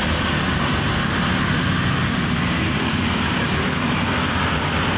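Steady road and engine noise of a moving car, heard from inside its cabin in city traffic.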